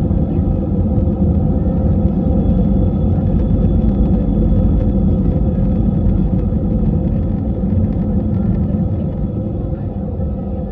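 Steady low rumble of an airliner heard from inside the passenger cabin, easing slightly near the end.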